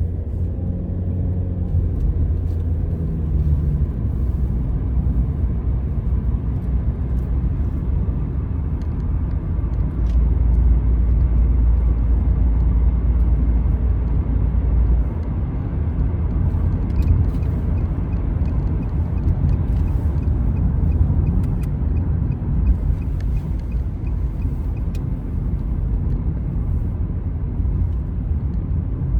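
Steady low rumble of a motor vehicle, growing louder for a few seconds about ten seconds in.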